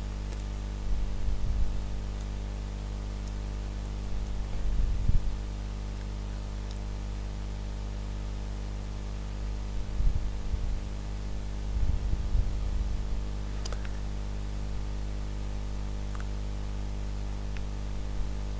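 Steady electrical mains hum with many overtones, broken by a few brief low bumps about 1, 5, 10 and 12 seconds in.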